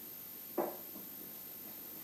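A single short knock about half a second in, from parts being handled, against faint room hiss.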